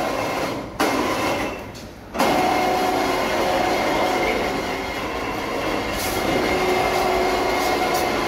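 Overhead electric hoist moving a suspended diesel engine. It starts abruptly twice in short runs, then runs steadily for several seconds with a steady machine whine.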